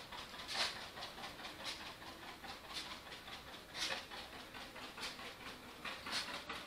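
Footsteps on grass: soft, swishing steps at about two a second.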